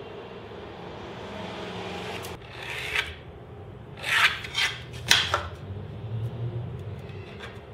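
Pencil scratching lines onto a melamine-faced board along a steel square: several short scratchy strokes, the loudest in a cluster about four to five seconds in.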